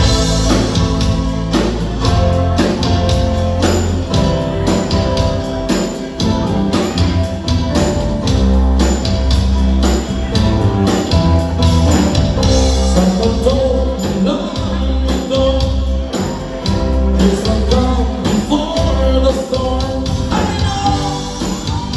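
A band playing a rock song, with a steady drum beat, bass and a singing voice.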